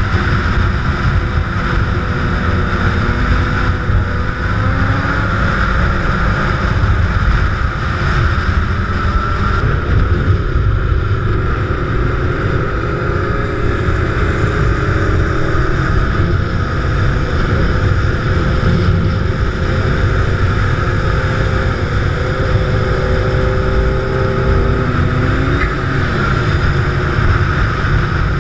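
Motorcycles riding in a group on a highway, heard from a camera on one of the moving bikes: a steady rush of engine and wind noise on the microphone, with engine notes rising and falling now and then as the bikes speed up and slow down.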